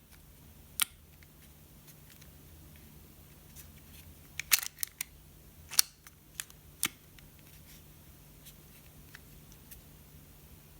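Scattered sharp small clicks and taps from handling a small device and tools at a workbench. Most of them come in a cluster about four to seven seconds in, over a faint steady low hum.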